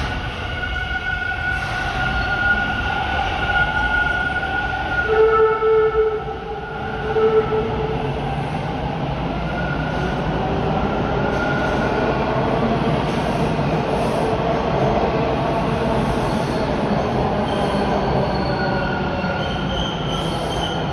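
TTC Bombardier T1 subway train running at the station platform: a steady rumble with high whining tones that rise and fade over it, loudest about five to eight seconds in.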